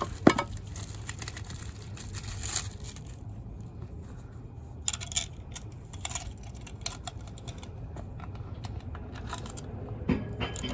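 Small metal clicks and clinks of a headlight, its screw and hand tools being handled while the light is fitted to an e-bike's front fork, with one sharp click just after the start the loudest. A low steady hum runs underneath.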